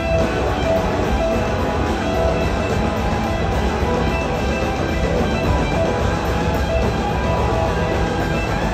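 Live blues-rock band playing an instrumental passage: electric guitar lines over drums and keyboards.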